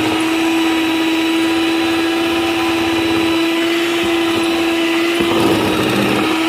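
Electric hand mixer running at a steady pitch, its beaters churning egg-and-sugar cake batter, with a brief louder patch about five seconds in.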